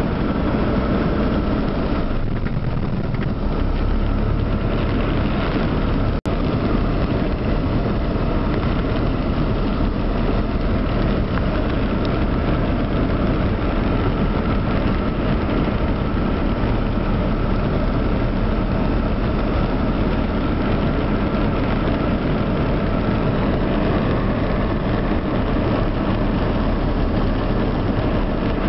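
Steady noise inside a car driving along a rain-soaked, water-covered street: the engine running and the tyres on the wet road. The sound cuts out for an instant about six seconds in.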